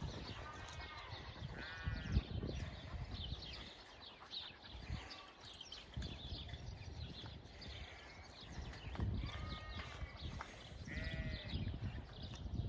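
Sheep bleating, a few short calls near the start and again near the end.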